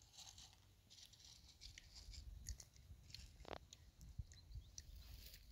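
Near silence, with faint scattered clicks and rustles and one brief faint squeak.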